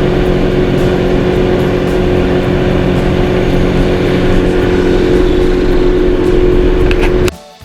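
Sea-Doo Fish Pro jet ski running steadily at speed, its engine note held at one pitch under a loud rushing noise. It cuts off suddenly near the end.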